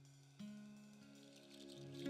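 Faint background music of sustained, held notes, with new notes coming in a few times.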